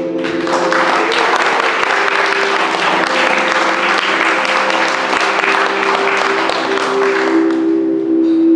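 Audience applauding over sustained background music chords. The clapping starts about half a second in and fades out near the end, while the music holds on.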